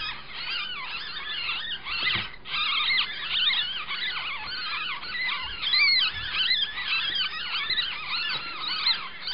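Nine-day-old kits squeaking without a break: many high, arching squeaks overlap one another, from the kit being weighed and its littermates.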